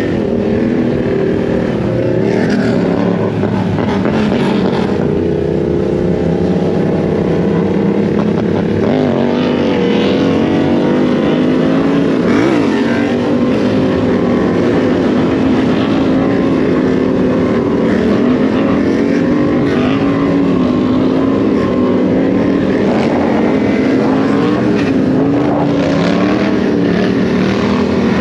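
Honda Grom's small single-cylinder four-stroke engine running while riding, its pitch drifting slowly up and down with the throttle.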